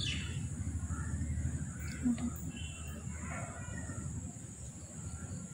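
A few faint, harsh crow caws, about a second apart, over a low rumble of wind or handling noise.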